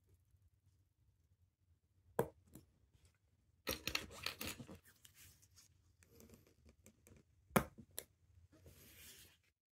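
Faint handling noise of a watch movement being worked in its holder: a few small sharp clicks, the loudest about seven and a half seconds in, and stretches of scratchy rustling from gloved fingers and a pegwood stick against the movement.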